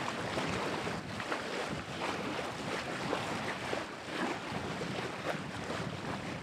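Water rushing and splashing along a moving boat's hull, the bow wave surging in irregular gushes, with wind buffeting the microphone.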